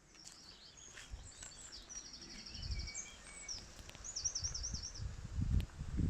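A small songbird singing quick, high-pitched trills and warbling phrases over an uneven low rumble that builds from about a second in.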